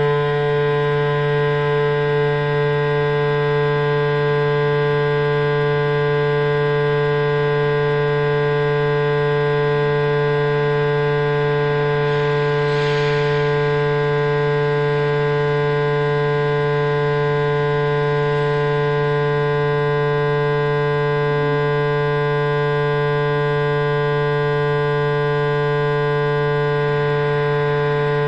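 Loud, steady electronic drone made of many stacked, unchanging tones, strongest in a low hum with a brighter tone above it, with no rise or fall.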